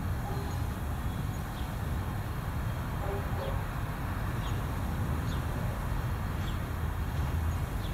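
Outdoor background: a steady low rumble, with faint short high chirps of small birds every second or so.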